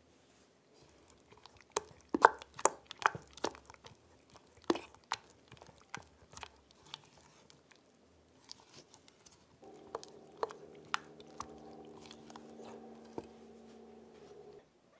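Silicone spatula stirring thick custard cream in a small enamel saucepan: sticky, wet squelches and irregular light clicks of the spatula against the pan. A steady low hum comes in about two-thirds of the way through and cuts off suddenly just before the end.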